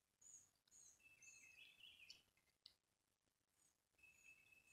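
Near silence with faint bird calls: scattered short high chirps and a thin whistled note that comes twice, once with a brief warble.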